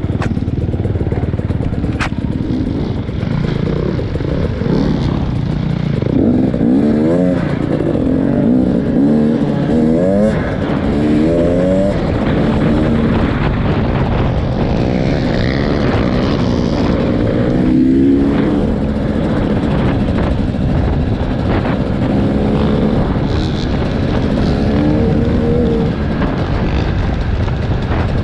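An engine running steadily, its pitch rising and falling several times as it speeds up and slows down.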